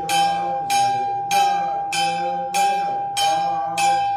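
A small ritual bell struck at an even pace, about three strikes every two seconds, each ringing on in a clear tone until the next strike. A voice chants softly underneath.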